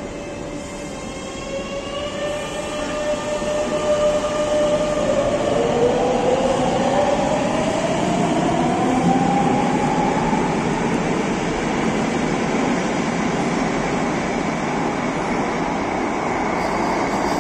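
Madrid Metro Line 12 electric train pulling out of an underground station. A steady hum gives way about two seconds in to a motor whine that rises in pitch as it accelerates. The rumble of the wheels swells and then eases slightly as the train runs into the tunnel.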